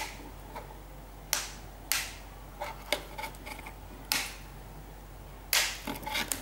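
A laptop keyboard's plastic clicking and cracking as it is flexed and forced off the top case of an Asus Eee PC Seashell, where it is still stuck. About half a dozen sharp, separate clicks, the loudest about five and a half seconds in.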